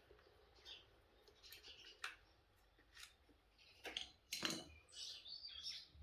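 Faint clicks and scrapes of a washing machine drain pump being taken apart by hand, with a busier run of handling noise about four seconds in.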